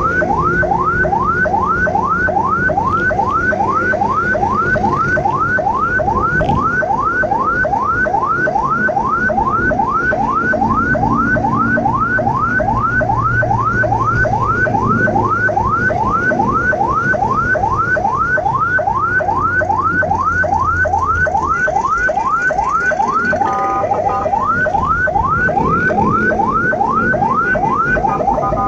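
Ambulance siren in yelp mode: a rising wail repeating about three times a second, heard from inside the ambulance over a low engine hum. About four-fifths of the way through it briefly breaks into a steady tone, then goes back to the yelp.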